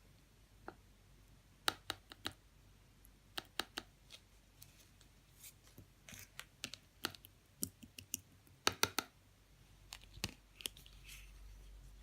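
White pearl slime being pressed and squished by hand, giving irregular sharp clicks and little pops, often in quick clusters of two or three.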